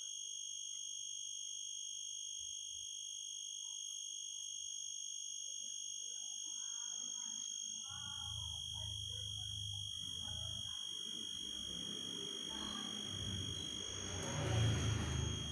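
A steady high-pitched ringing tone with higher overtones runs throughout. From about halfway, irregular rustling and low thumps join it, loudest in a short burst near the end.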